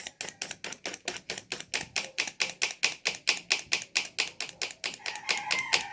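Mazda 3 fuel injector clicking rapidly and evenly, about seven clicks a second, as it is pulsed while fuel is pushed through it backwards to flush out a clog.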